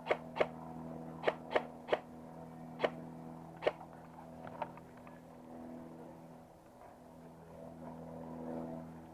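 Airsoft guns firing single shots, about eight sharp cracks at uneven spacing over the first five seconds, then they stop. A steady low hum runs underneath.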